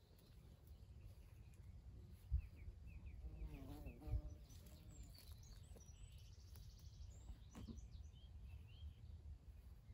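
Faint outdoor birdsong: scattered high chirps and a short lower call near the middle, over a low rumble. Two soft thumps of footsteps on grass stand out, the first a little over two seconds in and the second about four seconds in.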